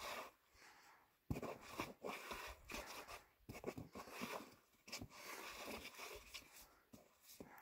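Faint, irregular scuffing and scraping of a climber's shoes, knees and clothing rubbing against the rock walls while squirming up an offwidth crack, with one sharper knock about a second in.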